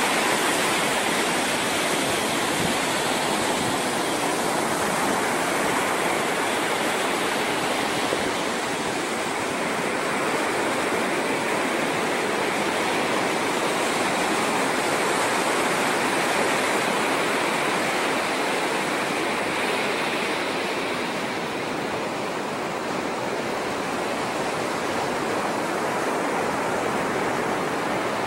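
Ocean surf breaking on a beach: a steady rush of water without distinct wave-by-wave swells.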